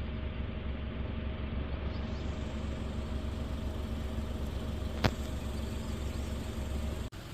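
A steady low engine hum with faint steady tones, and one sharp click about five seconds in; the hum cuts off abruptly near the end.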